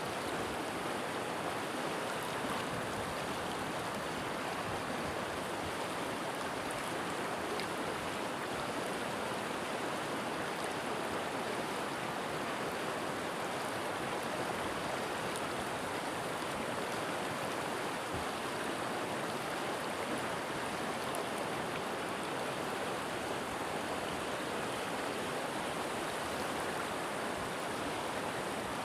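River water flowing steadily, an even rushing of running water that does not change.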